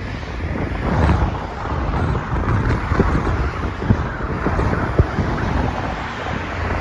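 Wind buffeting the microphone of a moving bicycle rider, over the noise of passing highway traffic, with a few sharp knocks about three, four and five seconds in.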